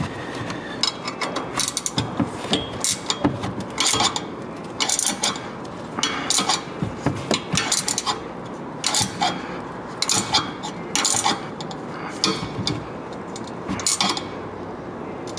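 Hand ratchet clicking in short, irregular runs as the top coilover mount bolts on the shock tower are snugged down.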